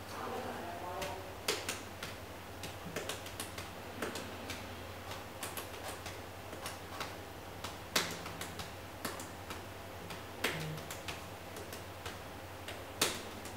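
Scattered small clicks and taps at an irregular pace over a low steady hum, with a few louder knocks about a second and a half in, around the middle and near the end.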